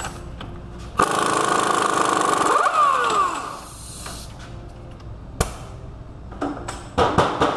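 Impact wrench running in a burst of about two and a half seconds on the Hummer H3's 35 mm axle nut, its motor pitch sliding as it winds down. A sharp metal knock and several clinks follow near the end.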